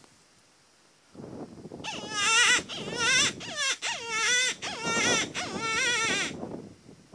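Predator call sounding a wailing, quavering distress cry, several wavering cries in a row for about four seconds, used to lure coyotes.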